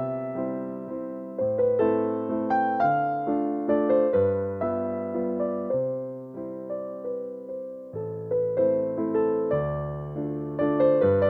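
Background music: a piano melody with chords and bass notes, each note struck and fading.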